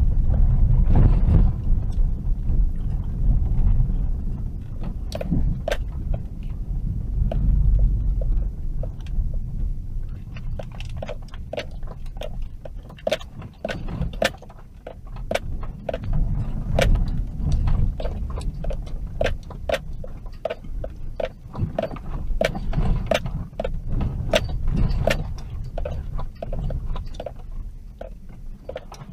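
Vehicle driving slowly on a dirt road, heard from inside: a low rumble of engine and tyres, with frequent sharp clicks and rattles from about ten seconds in.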